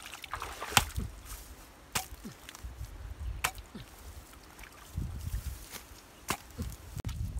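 Short-handled hoe chopping into wet mud and a muddy bank: several sharp strikes at irregular intervals, the loudest about a second in. Water sloshes and drips as mud is lifted and moved about in the shallow water.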